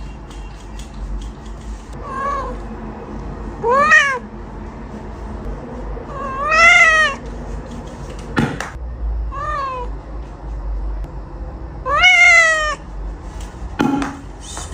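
A cat meowing five times, loud drawn-out meows that rise and fall in pitch, with two sharp knocks in between.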